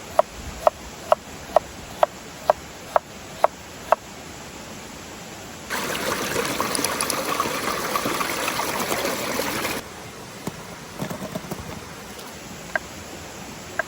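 A knife chopping on a wooden cutting board, about two strokes a second, nine in all. Then a loud steady hiss for about four seconds that starts and stops abruptly, followed by a few light clicks.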